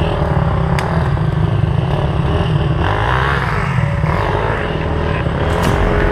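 Several enduro dirt bike engines running at low speed, loud and steady, with the engine note wavering as the bikes are worked over fallen logs.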